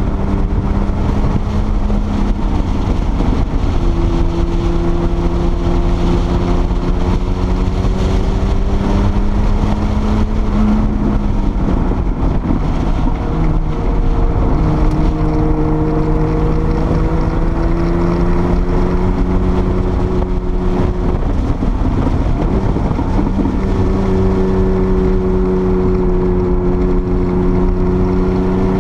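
Porsche 930 Turbo's air-cooled turbocharged flat-six running hard on a race track, heard from inside the car over heavy wind and road noise. The engine note is steady, dropping in pitch about twelve seconds in and again about twenty-two seconds in, and climbing slowly in between.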